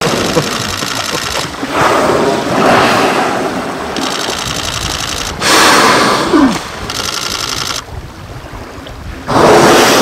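A whale blowing at the surface close by: three loud rushing exhalations, about a second and a half in, at five and a half seconds, and again near the end. Between them comes a fast, even mechanical rattle.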